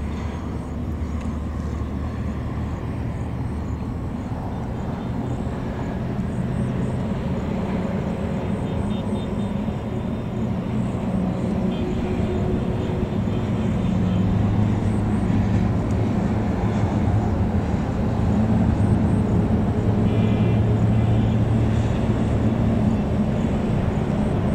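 Distant rumble of a Vande Bharat Express electric trainset approaching at high speed, growing slowly louder.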